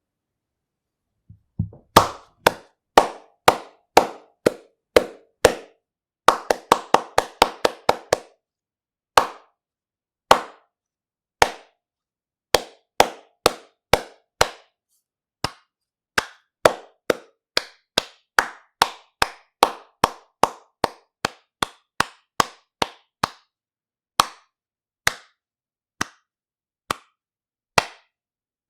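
Hands clapping, one sharp clap at a time: first at a moderate pace, then a quick burst of fast claps, then slower, evenly spaced claps that spread out to about one a second near the end.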